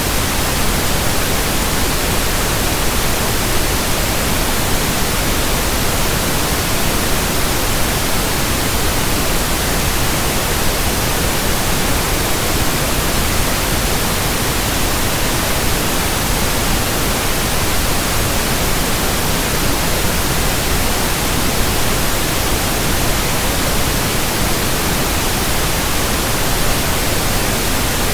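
Steady synthesized pink noise: an even hiss spread across all pitches at a constant level, with no tones, clicks or rhythm.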